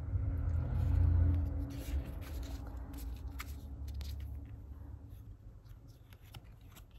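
A stack of matte photocards handled and slid one over another by hand: soft rubbing and small clicks of card edges, with a low rumble during the first two seconds or so.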